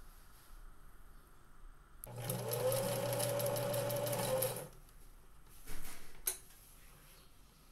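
Electric sewing machine stitching fabric. It starts about two seconds in, runs steadily for about two and a half seconds, then stops; a couple of short knocks follow.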